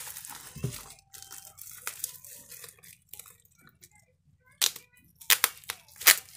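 Plastic bubble-wrap packaging crinkling and rustling as it is handled, then a few loud sharp cracks in the last two seconds as the wrap is cut open with scissors.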